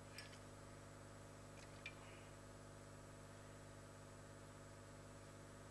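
Near silence: a steady faint electrical hum, with a few faint small clicks just after the start and about two seconds in.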